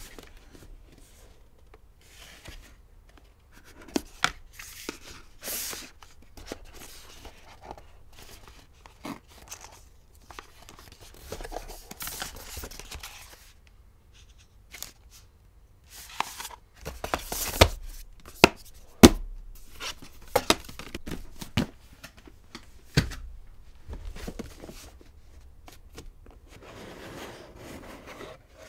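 Cardboard boxes and lids of Leica Q3 packaging being handled: rubbing and sliding, packaging rustling as accessories are lifted out, and scattered sharp taps and knocks as boxes are set down, the loudest a little past the middle.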